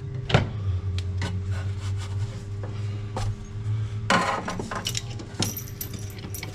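Scattered metallic clicks and knocks as a bolt, washer and backing plate are worked up into a ute's chassis rail, with a short scrape about four seconds in.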